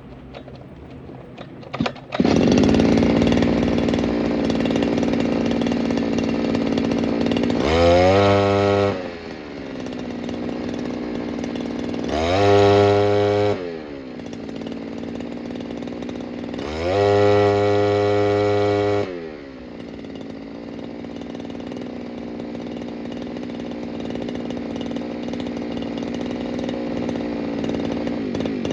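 Small two-stroke engine catching about two seconds in and running, revved up three times for a second or two each and dropping back to a steady idle between revs. It is loud.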